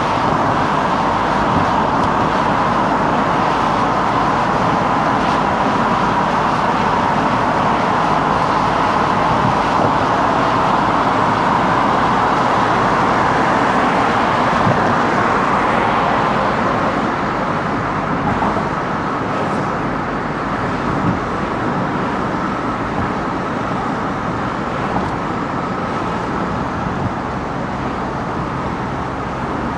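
Steady tyre and road noise of a car driving through city traffic, easing off slightly about halfway through.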